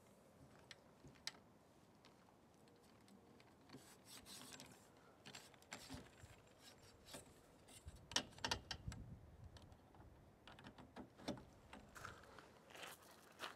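Faint scattered clicks and rubbing as the awning's strut pole sections are fitted together and slid through steel eyelet bolts, busiest about eight seconds in.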